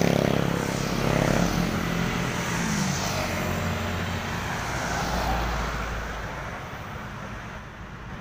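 A motorcycle passes close, its engine fading away over the first few seconds, leaving a steady hum of road traffic that grows quieter.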